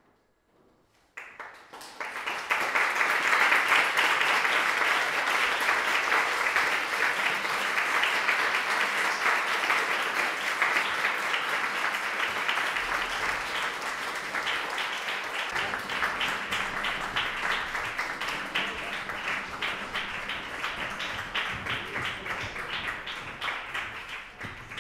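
Audience applauding after a concert piece ends: a moment of silence, then clapping breaks out about a second in and keeps up steadily, easing slightly near the end.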